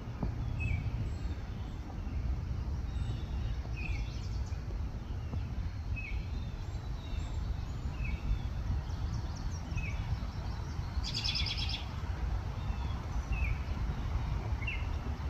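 A very small songbird chirping loudly: short, high chirps repeated about every second or two, with a quick high trill about eleven seconds in.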